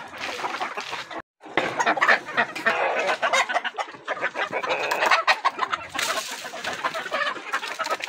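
A flock of hens and roosters clucking and squawking, many birds at once in a busy, overlapping chorus, with a brief break about a second in.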